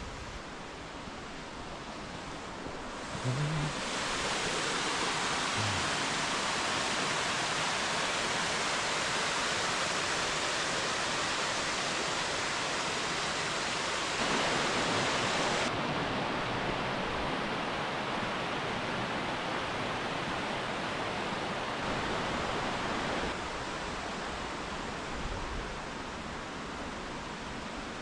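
Mountain stream rushing steadily, running full after a day of rain. The sound steps up about three seconds in and drops back in stages later on, as the takes change.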